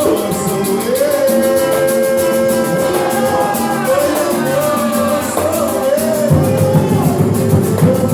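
A group playing music with a singing voice carrying a melody in long held notes over quick, even percussion. A heavier low drum and bass part comes in about six seconds in.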